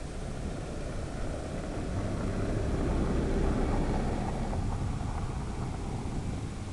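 Quadcopter in flight: a rushing mix of motor and propeller noise and wind, swelling louder in the middle and easing off again.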